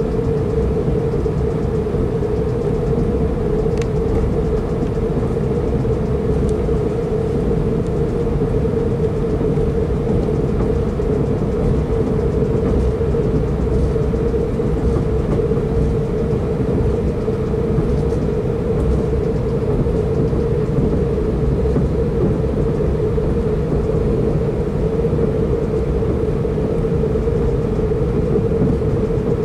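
Steady running noise heard from inside a Pendolino tilting train at speed: a low rumble of wheels on the track under a constant mid-pitched hum.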